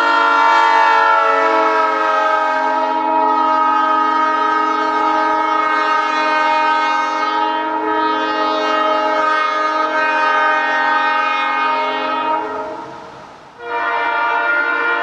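Nathan Airchime train horn blown from an air valve, sounding one long steady chord of several notes that tapers off about 13 seconds in, then starting again abruptly just before the end.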